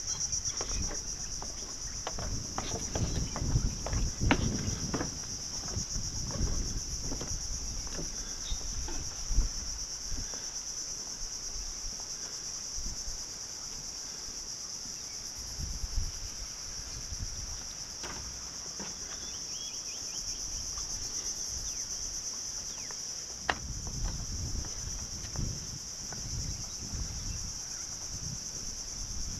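Steady high-pitched drone of an insect chorus, unbroken throughout, with low rumbles coming and going beneath it and a sharp click about two-thirds of the way through.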